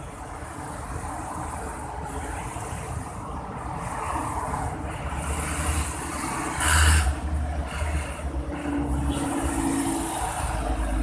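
Street traffic heard from inside a vehicle: engines running with cars passing close by, growing louder, with a brief loud rush about seven seconds in as a vehicle goes past.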